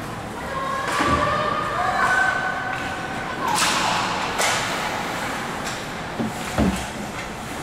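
Ice hockey play: skates scraping on the ice and sticks and puck clacking, with heavy thuds against the boards about a second in and again near the end.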